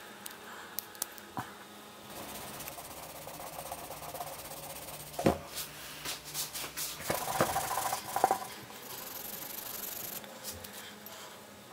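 A green pad rubbed back and forth over a steel axe head, a scratchy scrubbing noise, while the edge is polished. A few sharp knocks and clicks come about halfway through.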